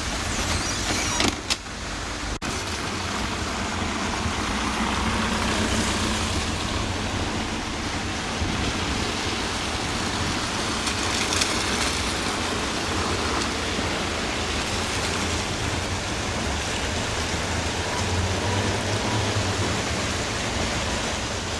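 Steady rushing noise of a rainy town street, with a low rumble underneath.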